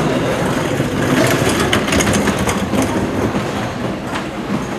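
Steady rumbling din with scattered clattering clicks, densest in the middle.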